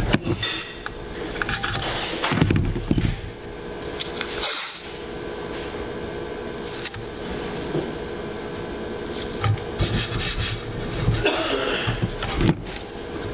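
Green painter's tape being pulled off the roll with a rasping peel and smoothed down by hand onto a metal 3D-printer bed, with scrapes and light knocks of handling.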